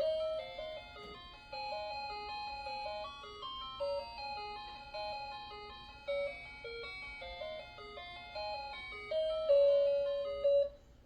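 HUGE HAPPINESS cuckoo clock playing one of its built-in electronic melodies, a simple tune of plain single notes, like an ice cream van chime. It ends on a held note that cuts off near the end.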